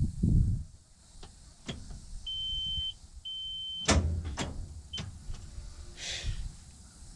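Starter solenoid clicking several times without the engine cranking, one click heavier with a low clunk, along with two steady high-pitched beeps. The starter is not turning the motor over despite a fully charged battery; the owner suspects the solenoid or the starter.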